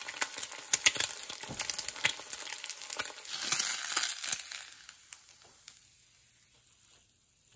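An egg sizzling and crackling in oil in an IKEA Sensuell stainless steel frying pan. The sound dies away a little past halfway as the pan comes off the burner.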